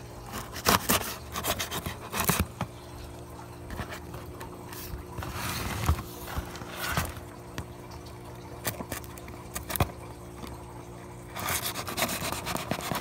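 Cardboard shipping box being handled and opened: scraping and rubbing of cardboard, with a few sharp knocks and clicks in the first couple of seconds and another cluster near the end, over a faint steady hum.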